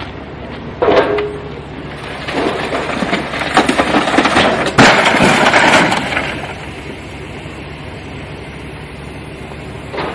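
Road vehicle collision: a sudden bang about a second in, then a run of crunching, cracking and breaking from about two to six seconds in, with the loudest hit near the middle, fading to a steady low rumble.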